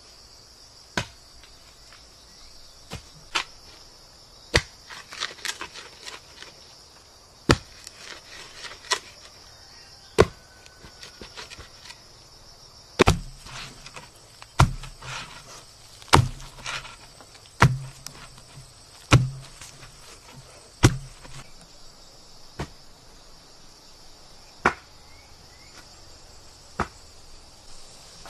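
A wooden pole jabbed again and again into forest soil, each stroke a sharp knock, with a deeper thud on the strongest strokes, which come about every second and a half in the middle stretch. A steady high drone of insects runs underneath.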